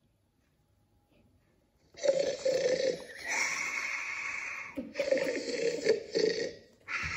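Snoring, three long loud snores with short gaps between them, starting about two seconds in.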